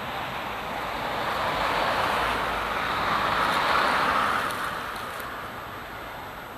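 A vehicle passing close by: its rolling noise swells, peaks about four seconds in, then fades.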